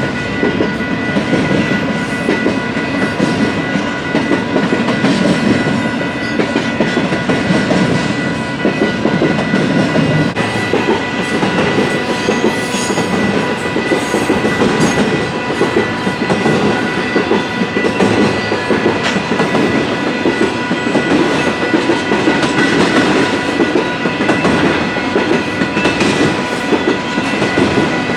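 Freight train rolling past, its cars clattering over the rails, with a few steady high-pitched tones held over the rumble.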